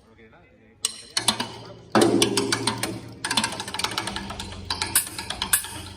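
Drum kit played in fast fills: after a short pause, rapid strokes start about a second in, and a loud hit with ringing drums and cymbals about two seconds in leads into more dense, quick playing.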